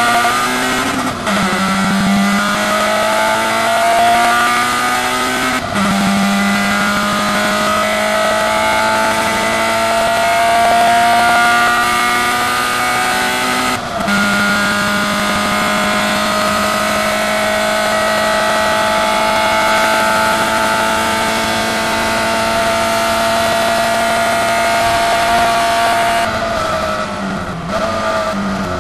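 Hill-climb race car's engine at full throttle, heard from inside the cabin. The pitch climbs steadily through each gear and drops sharply at upshifts about a second in, near six seconds and near fourteen seconds. Near the end the revs fall and jump a few times as the car lifts off and shifts down.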